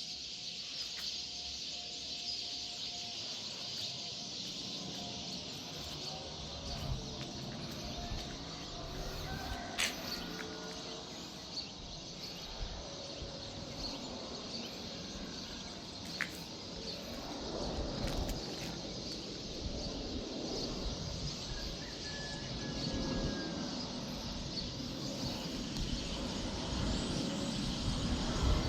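Birds chirping over steady outdoor background noise, while the low rumble of an approaching Airbus A321neo jet with CFM LEAP-1A engines slowly grows louder in the second half.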